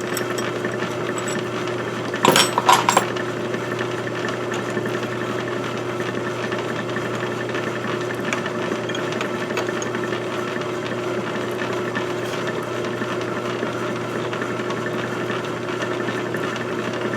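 A small electric motor running steadily with an even hum, and a brief cluster of clicks about two seconds in.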